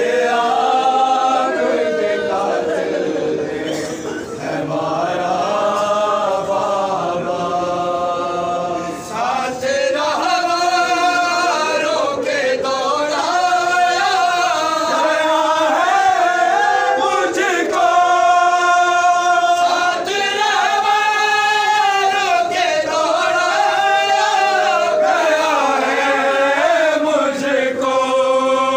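A group of men chanting an Urdu noha, a mourning lament, together and unaccompanied, the melody rising and falling in long held lines.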